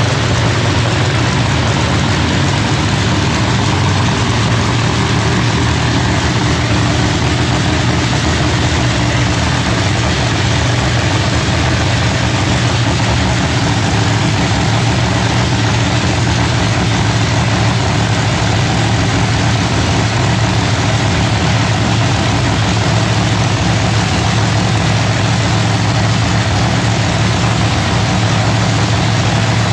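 Freshly rebuilt Pro Line MH7 Hemi drag-race engine in a Camaro, idling loud and steady.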